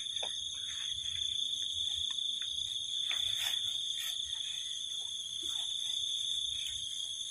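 Steady high-pitched insect chirring in unbroken layered tones, with a few faint knocks and clicks.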